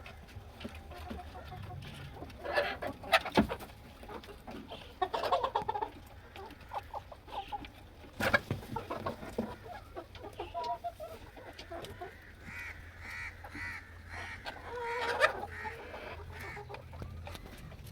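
Chickens clucking, with a rapid run of repeated short calls about two-thirds of the way in. A few sharp knocks are heard about three seconds and eight seconds in.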